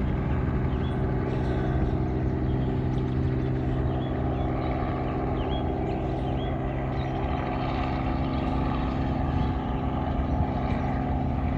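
Helicopter's engine and rotor running steadily, a loud even sound built of several steady low tones.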